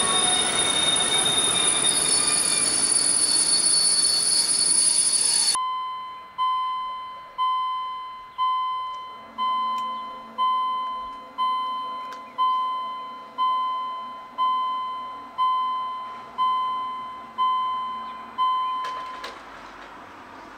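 A train running past with its wheels squealing on the rails, cut off abruptly after about five seconds. Then a railway level-crossing warning bell dings about once a second, thirteen strikes that each ring out, and stops shortly before the end.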